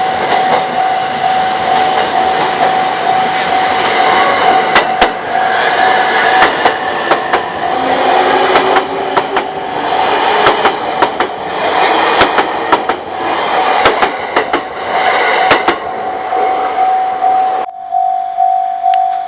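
A JR East train passes over a level crossing, its wheels clicking sharply and repeatedly over the rail joints, while the crossing's warning bell rings steadily with a pulsing tone. Near the end the train noise cuts off suddenly and the warning bell keeps ringing on its own.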